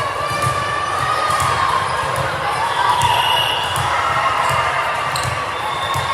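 A ball bouncing on a hard gym floor about twice a second, with voices and crowd noise echoing in a large hall.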